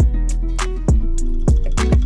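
Background music with a strong beat and held bass notes.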